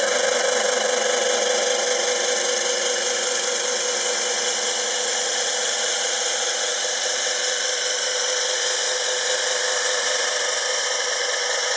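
Abrasive cut-off disc of a homemade steel chop saw grinding through square steel tube: a steady, loud, hissing grind with the saw's motor running under it.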